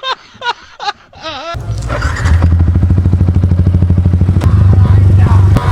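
Motorcycle with a full-system Akrapovic exhaust running loud, cutting in abruptly about a second and a half in with a low, steady exhaust note. Faint voices before it.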